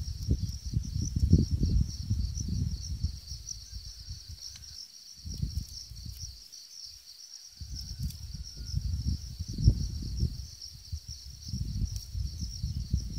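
Insects chirping in a steady, fast-pulsing high trill, over low rumbling gusts of wind on the microphone that die down about five seconds in and pick up again about two seconds later.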